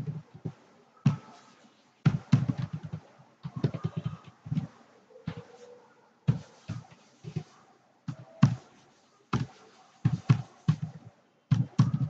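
Computer keyboard typing: irregular keystrokes, about two a second, each a dull thump with a click on top.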